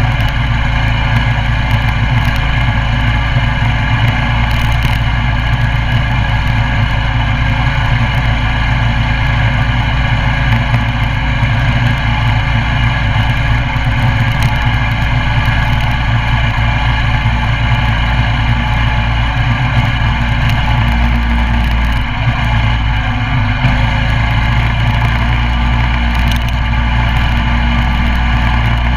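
Coleman CT200U mini bike's 196cc single-cylinder four-stroke engine running steadily during a ride, with a brief drop in level about three-quarters of the way through.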